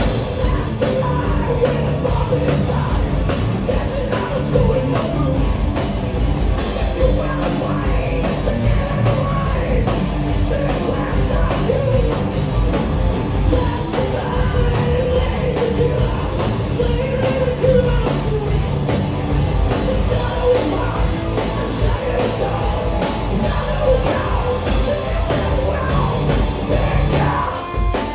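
A rock band playing heavy, hard-rock music with a singer.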